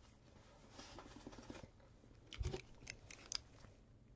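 Faint handling sounds of gloved hands picking up a utility knife: a soft rustle, then a few light clicks and taps.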